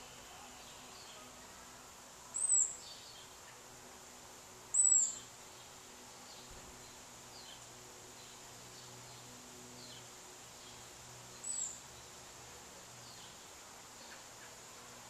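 Outdoor ambience with a bird giving three short, high-pitched calls, the last after a gap of several seconds. Fainter chirps of other birds and a steady faint insect-like buzz run underneath.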